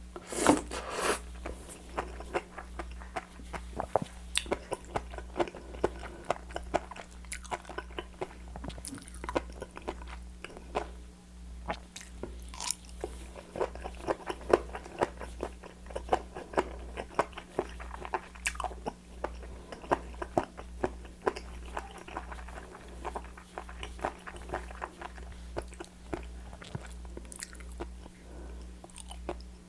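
Close-miked eating of raw seafood: crunchy, crisp chewing and biting with many small clicks, loudest about half a second in.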